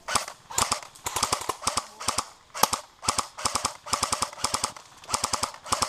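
Airsoft electric rifle, a Tokyo Marui SCAR-H, firing a rapid string of short bursts, roughly two a second, each a quick run of clicking shots.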